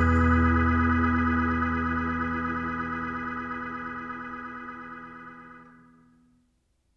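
Background music: one held chord that fades out steadily until it ends about six seconds in.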